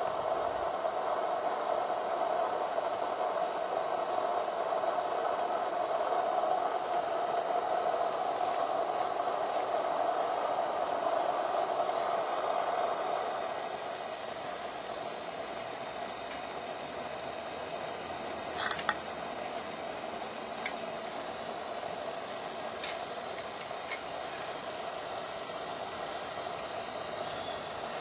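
Accucraft DSP&P 2-8-0 live-steam model locomotive standing in steam, hissing steadily. The hiss drops a little about halfway through, and a few light clicks follow later.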